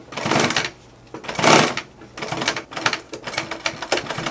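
Industrial walking-foot sewing machine with a servo motor, stitching in four short runs with brief stops in between. Each run is a quick, even clatter of needle strokes.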